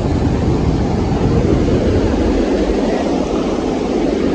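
Loud, steady rush of fast-flowing water at a large canal's gated fall.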